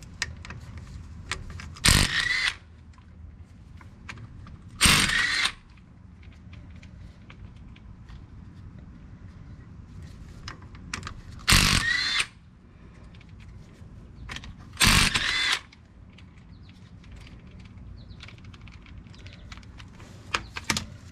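Cordless power tool with a socket spinning out the nuts that bolt the brake rotor to the hub, in four short bursts of about half a second each, with small metal clicks of the socket and nuts between them.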